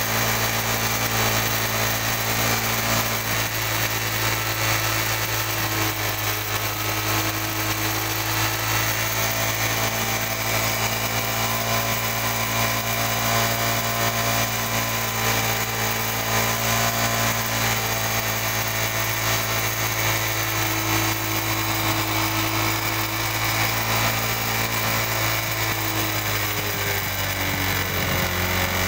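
Honda Dream Yuga's 110 cc single-cylinder four-stroke engine running steadily at idle during a carburettor mileage setting, with a slight change in pitch near the end.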